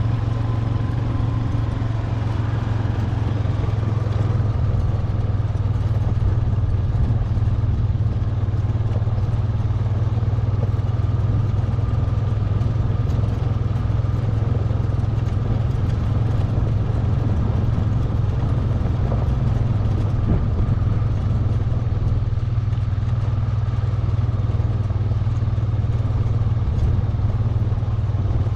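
ATV engine running steadily as the quad rides along a gravel track, a constant low hum with tyre and gravel noise over it.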